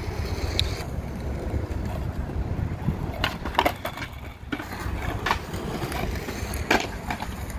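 Skateboard wheels rolling on concrete with a steady low rumble, broken by sharp clacks of the deck popping and slapping the ground during backside 180 flip attempts: a quick cluster of clacks around the middle, then single ones a little later and near the end.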